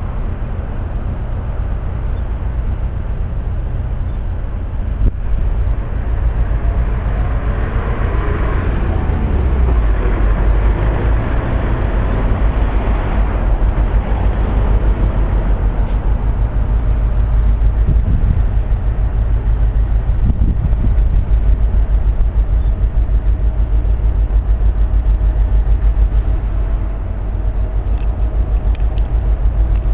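Heavy diesel freight locomotive engines running: a loud, steady low throb that grows heavier about ten seconds in as a loaded stone train approaches.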